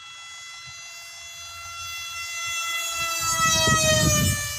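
Brushless electric motor of a homemade styrofoam RC jet whining at high speed as the plane makes a fast pass. The steady high whine grows louder and drops in pitch as it passes, about four seconds in, with a low rumbling noise underneath from about three seconds in.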